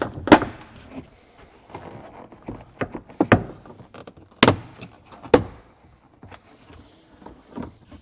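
Plastic rear sill trim panel of a Toyota RAV4's cargo area being wiggled and pulled up, its retaining pins and clips popping loose. Several sharp plastic clicks and knocks, the loudest about a third of a second in, with others around three, four and a half and five seconds in.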